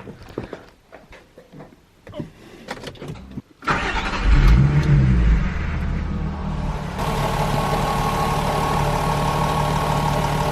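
Golf 4's 2.8-litre VR6 engine starting a little over a third of the way in, flaring briefly, then settling into a steady idle. With its new timing chain fitted it runs quietly, without chain rattle. A few faint clicks come before the start.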